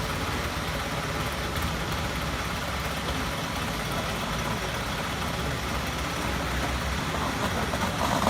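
Engine of a construction machine running steadily at a low idle, an even hum with no changes in speed.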